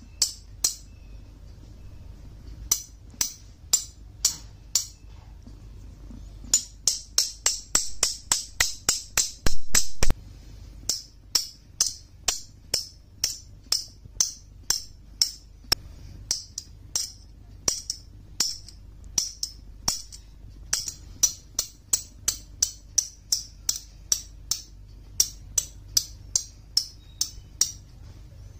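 Two metal spoons, held loosely, tapped together bowl against bowl: a long series of bright metallic clinks, each ringing briefly. Some clinks come about a second apart and others in quick runs of several a second, with a loud clattering flurry about ten seconds in.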